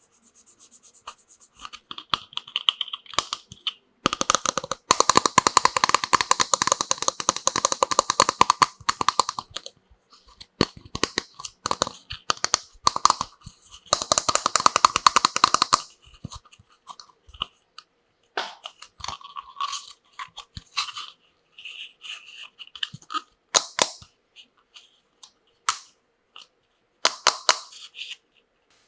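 Crinkling and rustling of plastic packaging being handled and torn open, in two long spells with scattered clicks and short rustles between.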